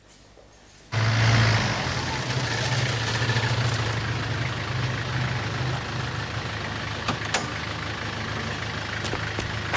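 A London black cab's engine idling steadily with a constant low hum, starting abruptly about a second in after near silence.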